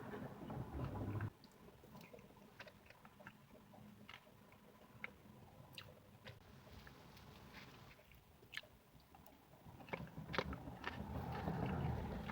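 A person biting and chewing pie close to the microphone, with many small sharp wet mouth clicks. A louder, rougher noise fills the first second or so and comes back near the end.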